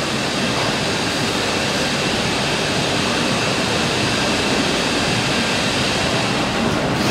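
CNC multi-spindle boring machine running amid the steady noise of woodworking machinery: a constant loud roar with a faint high whine.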